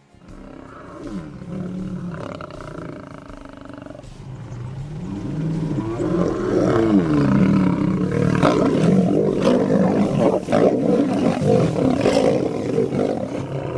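Lion roaring: a long bout that starts with lower calls and builds to full, loud roars about five seconds in, staying loud until near the end.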